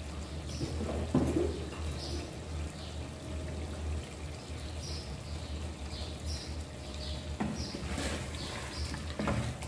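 A spoon stirring and scraping in a pot of curry, with a few sharp knocks against the pot, over a steady low hum.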